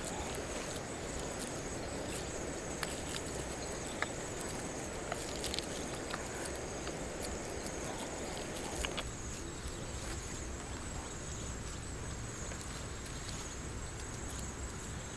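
Insects trilling steadily at a high pitch over a low rustling haze that drops away about nine seconds in, with scattered faint clicks and rustles of wet mud being handled in grass.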